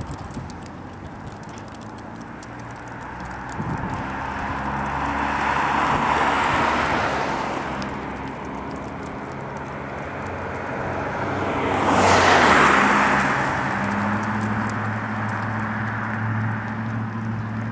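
Freight cars of a CN freight train rolling through a level crossing down the street, with road traffic passing close by: a car swells up and fades away about twelve seconds in, the loudest moment, and a steady low engine hum sits under the last few seconds.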